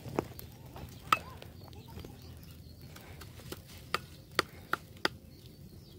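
Knife chopping raw beef on a wooden cutting board: sharp, irregular knocks, a few of them close together in the second half.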